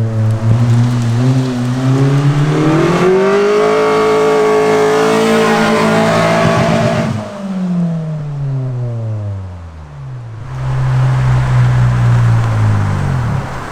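Mitsubishi Lancer's 4G15 four-cylinder engine, breathing through a pod air filter, revving under acceleration: the pitch climbs about three seconds in, holds high for a few seconds, then falls away as the car slows, runs steady again and drops once more near the end.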